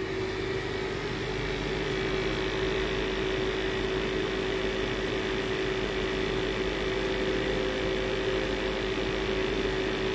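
Commercial gas-fired water heater running on its burner and fan: a steady hum with a rushing noise, a little louder from about a second in. It is firing normally with a good flame.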